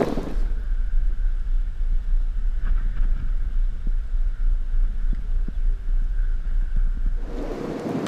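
Strong wind buffeting the camera microphone: a deep, uneven rumble with little else above it.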